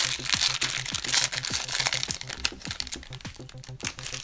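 Foil trading-card pack wrapper crinkling and rustling as a pack is torn open and the cards are pulled out. It is busiest in the first half and thins out near the end.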